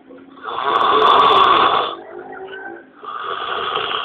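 A young man snoring loudly in his sleep. There are two long snores: the first lasts about a second and a half, and the second begins about three seconds in.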